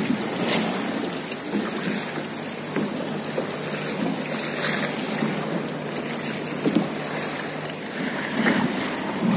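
Water lapping around a kayak and wind noise on the microphone, with a low steady hum underneath and a few brief knocks.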